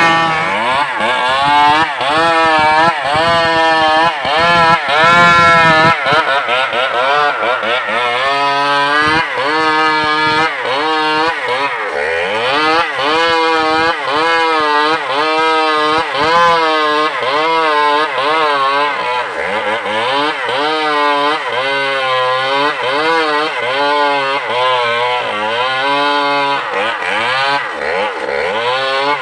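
Stihl MS381 two-stroke chainsaw running hard, its engine speed rising and falling again and again, about once a second.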